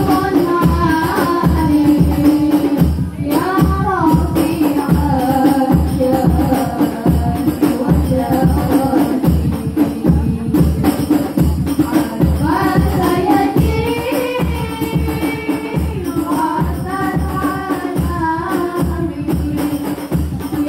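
Hadroh ensemble: women's voices singing an Islamic devotional song through a microphone, over rebana frame drums beating a steady rhythm.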